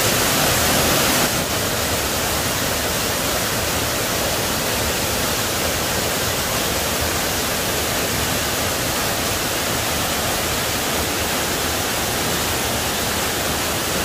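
A waterfall dropping straight down a cliff: a steady rush of falling water, a little louder for the first second or so.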